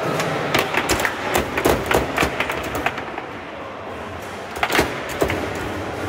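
Foosball table in play: a quick run of sharp knocks and clacks as the ball is struck by the rod figures and hits the table, dense for the first few seconds, then a few more knocks about five seconds in.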